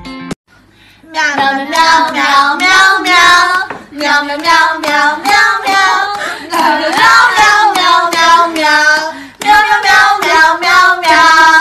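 A high voice sings a birthday song in meows, in phrases with short breaks between them.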